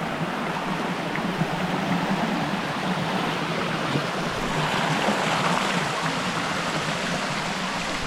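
Water rushing steadily down a rock cascade waterfall.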